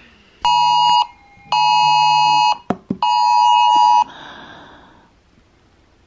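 Smartphone Wireless Emergency Alert tone sounding for a tornado warning: three loud, harsh beeps, each about a second long, with two brief clicks between the second and third.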